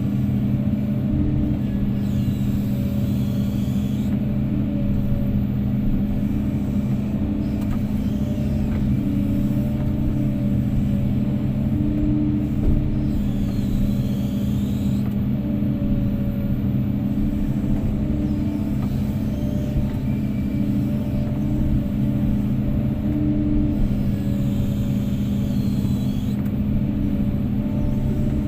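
Heavy diesel engine running steadily at a constant pitch, a deep even hum.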